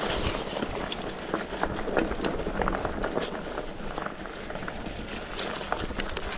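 Mountain bike riding fast over a rough dirt trail: tyres crunching on the ground and the bike rattling over bumps in quick, irregular clicks and knocks.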